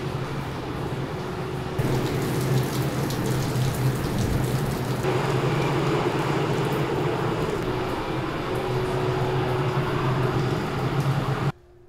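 Heavy rain and wind noise on a ferry's open deck, a steady hiss with a low steady hum beneath it. The sound changes abruptly about two seconds and five seconds in, and cuts off shortly before the end.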